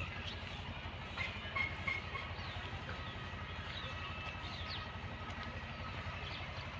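A steady low mechanical rumble with a fast, even pulse, from a distant engine or train, with short bird chirps scattered over it.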